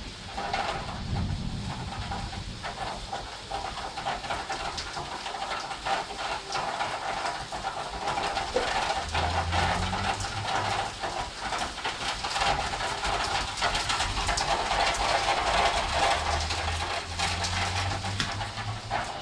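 Heavy rain in a thunderstorm: a steady hiss of the downpour with dense pattering of drops against the window, growing heavier about halfway through.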